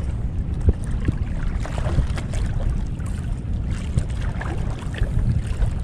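Choppy sea water sloshing and lapping around a wading angler close to the microphone, a steady low rumble with small splashes and knocks scattered through.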